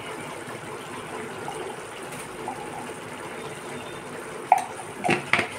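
Noodles simmering in broth in a steel kadai on a gas burner: a steady bubbling hiss. Near the end there are three sharp knocks.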